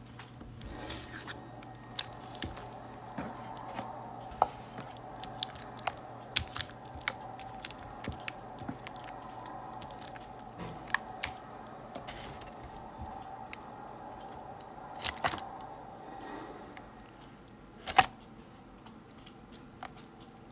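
Slime being poked, squeezed and pressed by hand: soft squishing with many irregular sharp pops and clicks as air pockets in the slime burst, one louder pop near the end.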